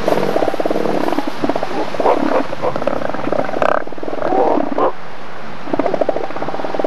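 Southern elephant seals calling: rapid, pulsed, throbbing calls at the start and again near the end, with shorter gurgling calls in between.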